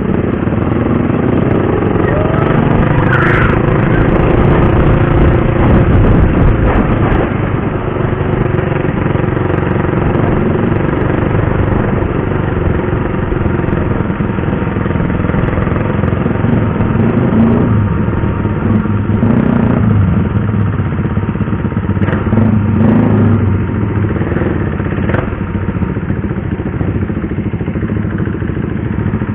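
Motorcycle engine running under way, its pitch rising and falling with the throttle, mixed with a steady rush of riding noise.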